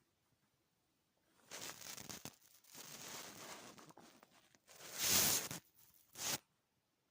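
Hungry stomach gurgling in four noisy, crackly bursts starting about a second and a half in, the loudest about five seconds in and a short one just after.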